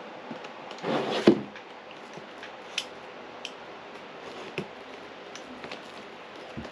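Cardboard box being handled and cut open with an X-Acto knife: a short scraping rustle about a second in, then a few scattered light clicks and taps.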